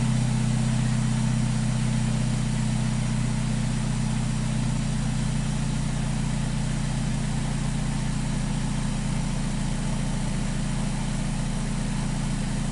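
BMW 316i E90's four-cylinder petrol engine idling steadily after a cold start, heard at the tailpipe of its modified exhaust. The engine note eases down slightly as the cold-start fast idle settles.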